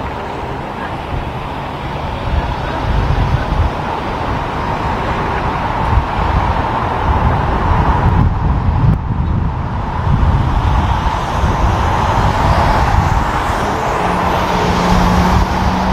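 Steady drone of a formation of four vintage biplanes' piston engines flying over, heard over a low rumble. A low steady hum joins near the end.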